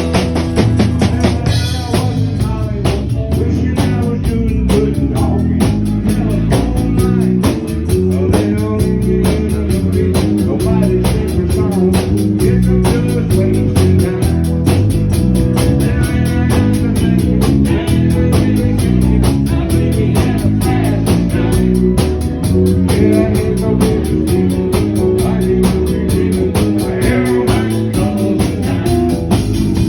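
A band playing a song, loud and steady, with a regular beat.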